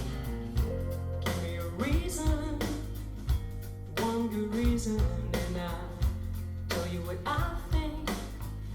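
A rock-pop song with singing, guitar, bass and a steady drum beat, played back through JBL Studio 220 mini monitor bookshelf speakers.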